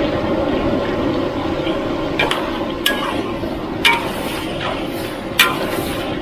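Chicken offal and holy basil being stir-fried in a wok: steady sizzling, with four sharp clinks of the spatula striking the wok.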